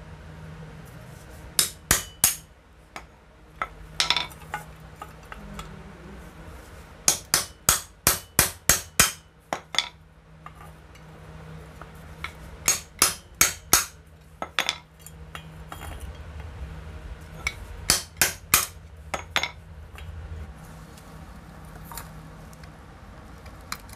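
Sharp metal-on-metal strikes in quick bursts of three to seven, with short ringing, as a hacksaw blade is driven against the iron rivets of an air-cooler motor's end cover to shear them off and free the old bush. A low steady hum runs underneath.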